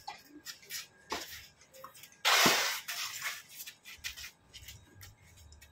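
Tennis rally on a clay court: sharp ball-on-racket hits and scattered footstep knocks. A loud, short hissing scrape comes from close by a little after two seconds in, with a dull thud inside it.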